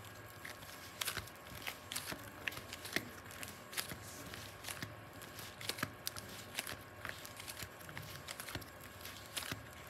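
Irregular soft clicks, crackles and crinkles from hands handling slime and small toy pieces, over a faint steady hum.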